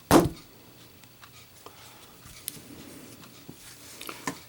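Zippo lighter lid dropped shut under its own weight: one sharp metallic clack, then a few faint small ticks.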